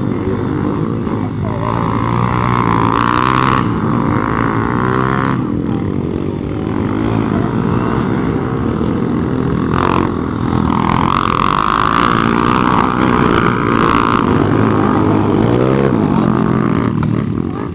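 Motorcycle engines revving on a dirt track, their pitch climbing and falling again and again as the riders accelerate and back off.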